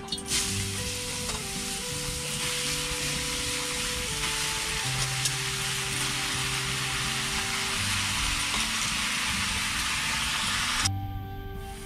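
Sliced mushrooms sizzling in hot oil in a metal wok over a wood fire. The sizzle starts suddenly just after the start and cuts off abruptly about a second before the end.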